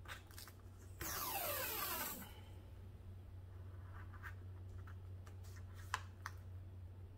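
Washi tape peeled off its roll in one noisy pull lasting about a second, starting a second in. After it come light rubbing and a few soft taps as the tape is smoothed down along the canvas edge.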